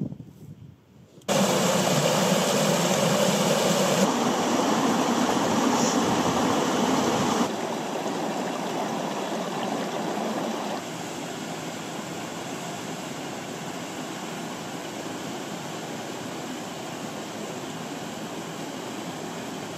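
Mountain river water rushing over rocks and small waterfalls, a steady rushing that starts suddenly about a second in and drops in loudness twice, abruptly.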